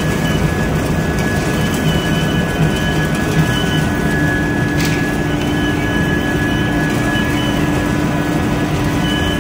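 Vertical ring die biomass pellet mill running steadily under load while it turns out pellets: a dense, continuous mechanical noise with a few steady whining tones. A lower steady tone joins about three and a half seconds in, and there is a single short tick near the middle.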